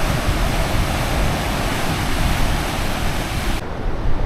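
Loud steady rushing of sea surf and wind, starting abruptly and cutting off suddenly after about three and a half seconds.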